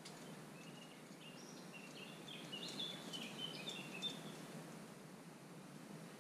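A small bird singing a quick run of short, high notes, from about a second in until about four and a half seconds, over a faint steady background hiss.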